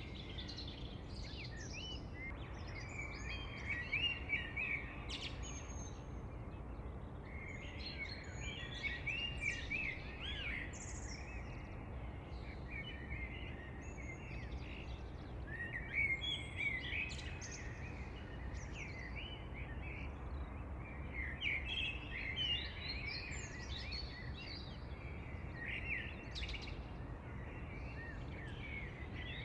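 Several wild birds chirping and singing in overlapping clusters of short calls and trills, with brief lulls between, over a low steady background rumble.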